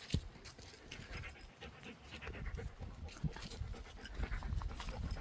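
A dog panting steadily with its mouth open, in quick, soft breaths.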